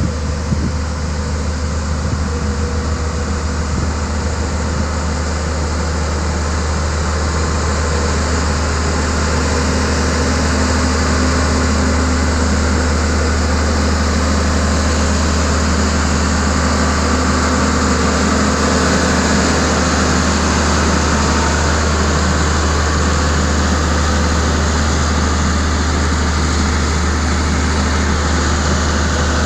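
Foton single-drum vibratory road roller's diesel engine running steadily as the roller works over wet soil, with a deep steady hum. It grows a little louder about a third of the way in as the machine comes close.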